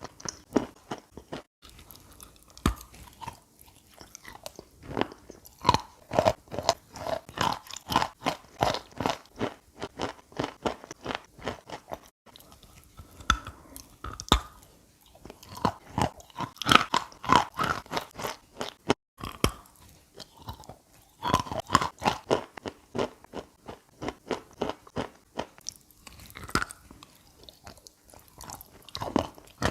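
A person biting and chewing chunks of chalk coated in chalk paste, close to the microphone: dense, irregular crunching and crumbling, broken by three brief silent gaps.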